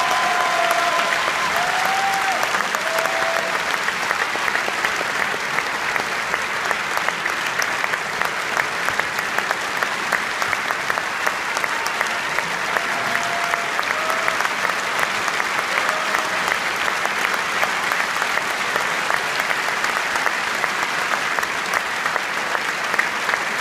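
Opera audience applauding at a curtain call: dense, steady clapping throughout, with a few short calls from the crowd rising above it near the start and again about halfway through.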